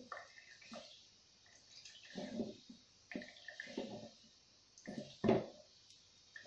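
Wooden spoon pressing and stirring fried shredded chicken in a wire-mesh strainer to squeeze out the oil: irregular scrapes and soft knocks against the mesh, with one louder knock about five seconds in.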